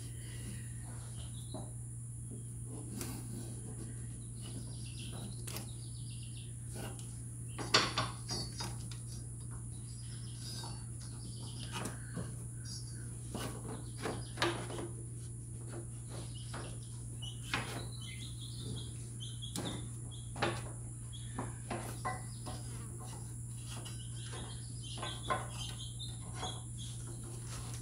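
Scattered metallic clinks and knocks of a wrench and parts being handled around a mower's clutch and drive pulleys while a drive belt is worked on, over a steady low hum.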